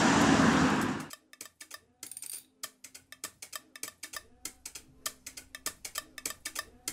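A car passing on a city street, loud for about a second and then cut off abruptly. Quiet, rapid clicking and ticking percussion of a music track follows, with faint soft notes under it.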